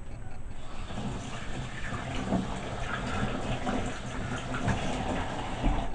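Water running from a tap as hands are washed under it, a steady rush starting about half a second in.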